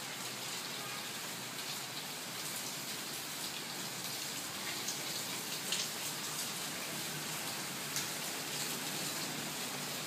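Steady rain falling: an even hiss with a few scattered, sharper drop taps.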